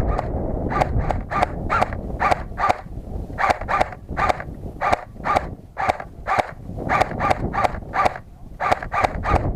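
Footsteps crunching on loose gravel, about two or three steps a second, with wind rumbling on the microphone.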